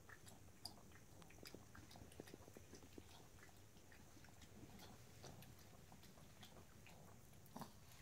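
Faint, quick clicks of a Yorkshire terrier lapping water from a pet water-dispenser bowl, with no coughing, after surgery to hold open its collapsing trachea. A slightly louder click comes near the end.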